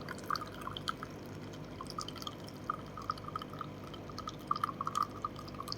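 Automatic espresso machine dispensing a single espresso: coffee trickles and drips from the spout into a cup in quick, irregular drops over a faint steady machine hum.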